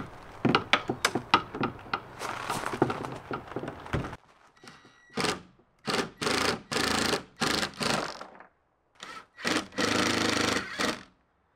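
Cordless power driver running in several short bursts, driving screws through a camper door's frame, after a run of clicks and knocks as the door is handled into place.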